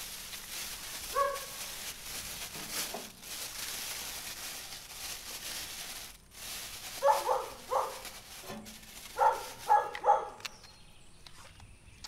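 A dog barks once, then in two quick runs of three or four barks later on. Earlier, a plastic bag rustles as it is pulled over an engine part.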